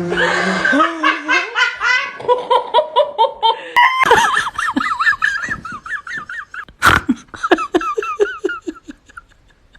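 Hearty laughter in quick repeated pulses, shifting to a higher-pitched laugh about four seconds in, with one sharp knock about seven seconds in.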